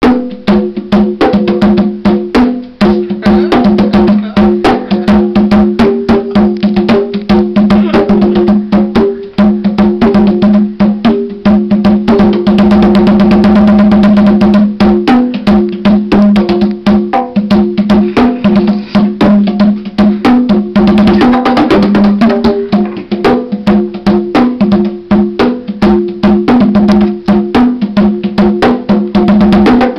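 Bongos and congas played by hand in a fast, steady rhythm of slaps and open tones on two or three pitched drum heads, with a rapid continuous roll about halfway through.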